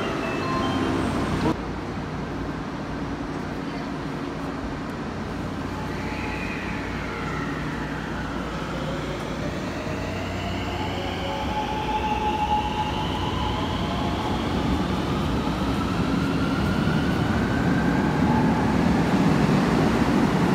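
JR West Thunderbird limited express electric train pulling out and accelerating. Its traction motors whine in several tones that glide upward from about six seconds in, over running noise that grows steadily louder toward the end.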